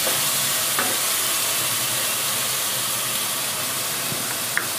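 Masala paste of onion, garlic and tomato sizzling in oil in a nonstick kadai, a steady hiss: the oil has separated and the masala is fully fried. A wooden spatula gives a light tap about a second in and another near the end.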